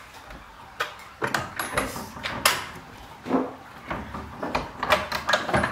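A string of irregular sharp knocks and clacks, about eight in under six seconds, with the loudest about two and a half seconds in.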